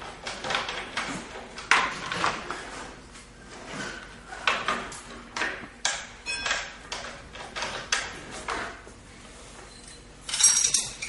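Scattered metal clicks, knocks and clinks from handling the unplugged tile bullnose machine's sliding tray and wheel guard. A louder metallic clatter with ringing comes near the end.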